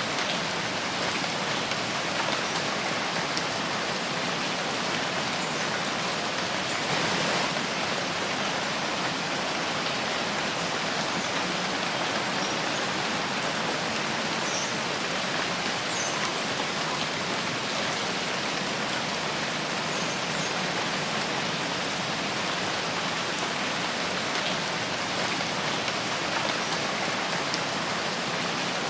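Steady rain falling in a forest, a dense even patter of drops on leaves and ground, swelling briefly a little louder about seven seconds in.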